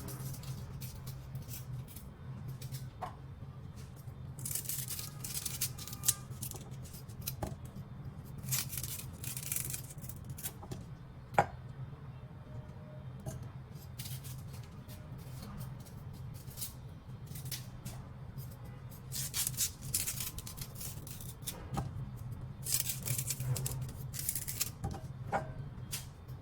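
Lemongrass stalks being trimmed and cut by hand: bouts of crisp rustling and cutting strokes, with a few sharp knocks, over a low steady hum.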